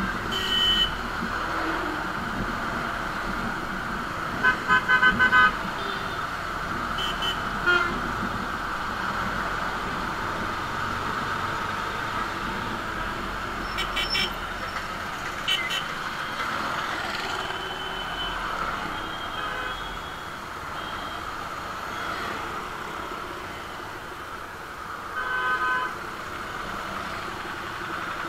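Motorcycle riding through city traffic: steady engine, wind and road noise, with vehicle horns tooting several times, loudest as four quick toots about four to five seconds in.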